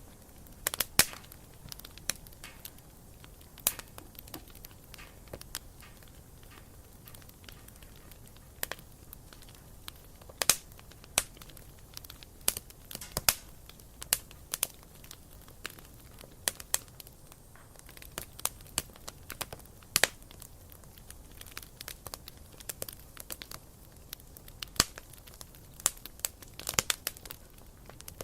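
Wood campfire crackling, with irregular sharp pops and snaps over a low steady hiss of burning.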